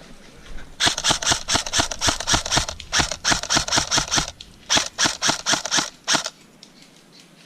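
Airsoft gun firing rapid strings of sharp shots, about six a second, in three bursts over about five seconds.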